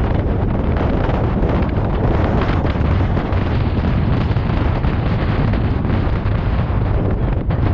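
Wind buffeting the microphone of a camera on a moving trike, a steady dense rush over the low rumble of the trike's engine and road noise.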